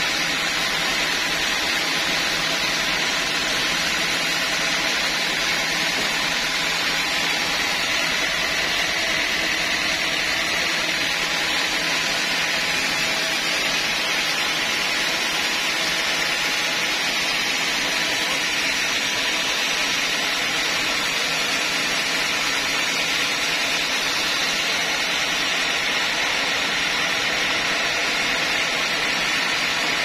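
Band sawmill running steadily, a constant machine whir with a hum of several fixed tones from the blade and its drive.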